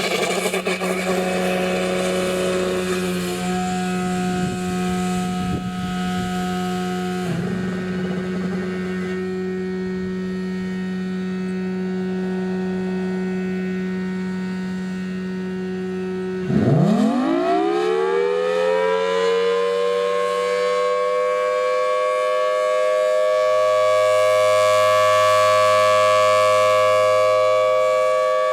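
Federal Signal Thunderbolt 1000T outdoor warning siren. For about sixteen seconds its supercharger blower runs with a steady hum while the chopper motor struggles to start. Then the chopper kicks in and the siren winds up over several seconds into a steady wail.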